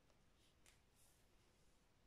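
Near silence, with a few faint crinkles of the shrink-wrapped LP sleeve being turned in the hand, between about half a second and a second and a half in.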